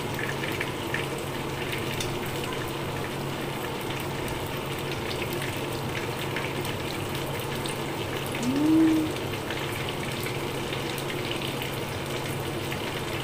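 Breaded chicken pieces frying in oil in a pan, a steady sizzle. About eight and a half seconds in, a short rising 'mm' hum of a voice.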